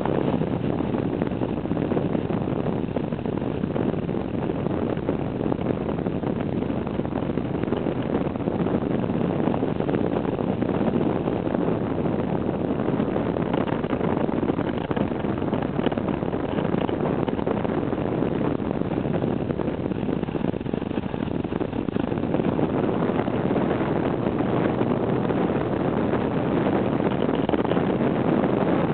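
Steady rush of wind on the microphone over the drone of a moving vehicle's engine and tyres, recorded on board.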